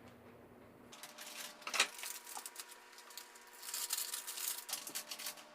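Faint crinkling and a light patter of small ticks as a packet of toasted oak shavings is handled and the shavings are tipped into a pail of wine must. There is a single click a little under two seconds in, and the busiest crackle comes near the end.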